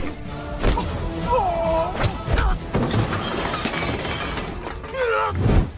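Film fight-scene sound effects: several sharp blows and breaking, shattering glass over a music score.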